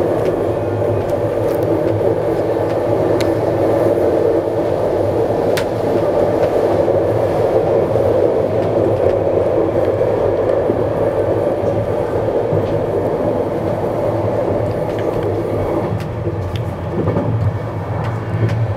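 Running noise of a type 136A passenger coach at speed, heard inside a closed second-class compartment: a steady rumble of wheels on rail. A few faint clicks come through in the first seconds.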